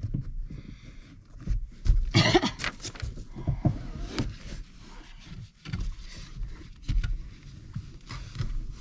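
Irregular clicks, clinks and knocks of hand tools (a red-handled wrench and a long socket extension) working the rear seat bracket bolts on the floor of a Jeep Wrangler, with a short vocal sound about two seconds in.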